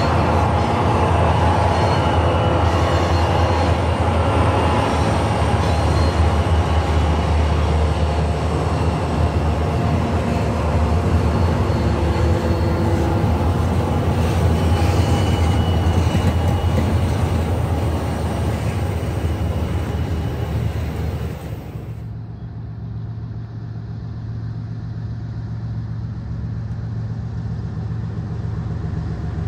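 Diesel freight train running sound with the steady low rumble of the engines, as a Union Pacific N-scale locomotive lash-up and stack train pass. About 22 seconds in it cuts to a quieter, duller, more distant train sound.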